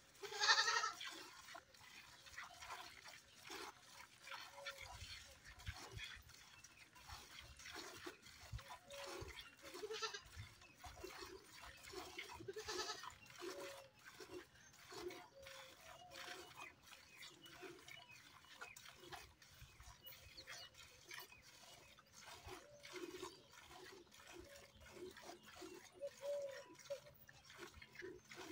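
Cow being milked by hand into a steel bucket: a steady rhythm of milk squirts striking the pail, about one or two a second. A goat bleats now and then, loudest just after the start.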